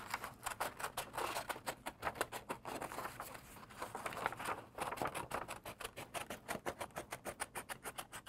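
Scissors cutting a curve through red cardstock: a quick, even run of crisp snips, several a second.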